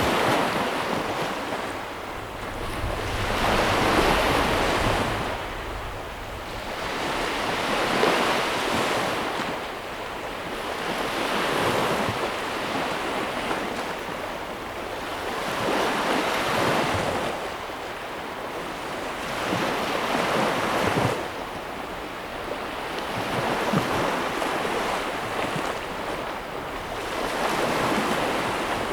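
Ocean surf: waves surging in and washing back in swells about every four seconds.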